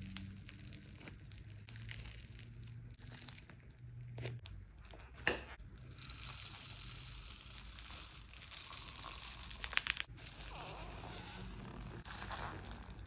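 Foam beads in sticky floam slime crackling and popping as fingers and hands press and squish into it, with one sharp click about five seconds in. In the middle, a longer dry rustle as small foam balls are poured from a plastic cup onto the slime.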